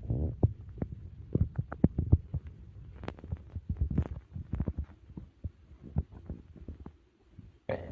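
Human stomach and intestines gurgling while digesting a big meal: irregular pops and squelches over a low rumble, thinning out after about five seconds, with a short louder rush near the end.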